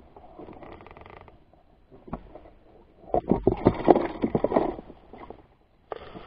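A plastic jerrycan holding caught climbing perch is handled in grass while a fish goes in. First soft rustling, then a single click, then a dense run of rapid knocks and rattles from about three to nearly five seconds in, the loudest part, and a short rattle near the end.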